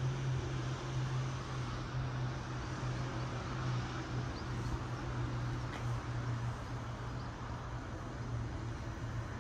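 Steady low mechanical hum, like a distant engine, over a constant rush of outdoor background noise, with a few faint short high chirps near the middle.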